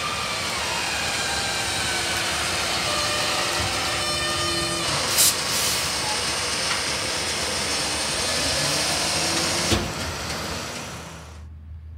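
Rear-loader garbage truck running, its engine and packer hydraulics making a steady mechanical noise with a gliding whine. A short burst of air hiss comes about five seconds in. The truck starts to move off before the sound cuts off near the end.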